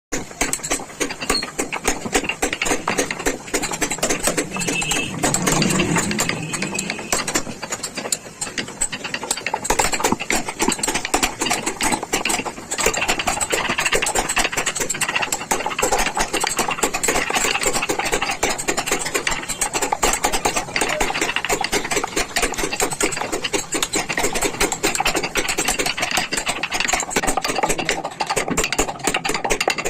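Carving tools cutting into a wooden vase: a continuous, rapid clicking and scraping of steel on wood.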